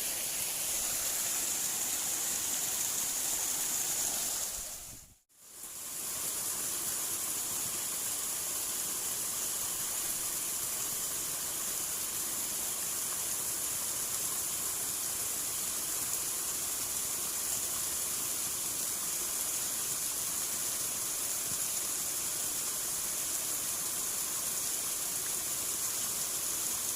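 Steady rush of water flowing in a small ditch, with a high, even hiss above it; the sound drops out briefly about five seconds in and comes back the same.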